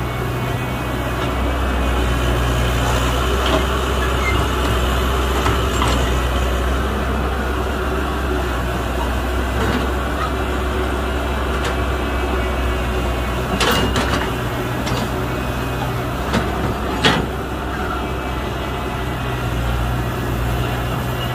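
Heavy earthmoving machinery's diesel engine running steadily at a low pitch as an excavator loads a dump truck. A few sharp knocks come about two-thirds of the way in.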